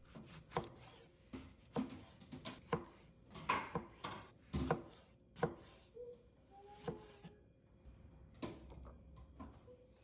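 Irregular clinks and knocks of kitchen work, about a dozen separate strikes: dishes, utensils and containers being set down and handled, with a few taps on a board.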